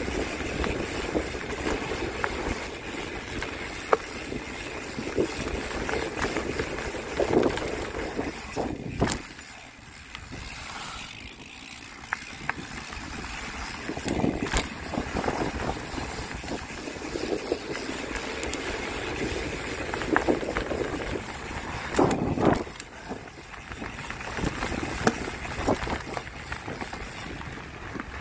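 Steady rushing noise with frequent short knocks and rattles throughout, easing off for a few seconds about a third of the way through.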